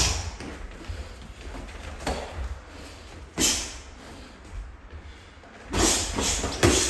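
Boxing gloves landing in sparring: scattered single punch impacts, a sharp one about three and a half seconds in, then a quick flurry of several near the end.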